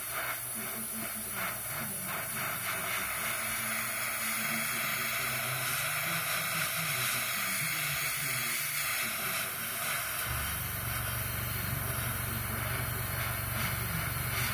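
Gravity-feed airbrush spraying paint: a steady hiss of compressed air and atomised paint.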